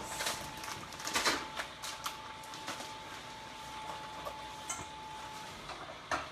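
Steady hum of an inflatable costume's blower fan under scattered clicks, clatter and rustling of things being handled on a kitchen counter, with a sharp knock near the end.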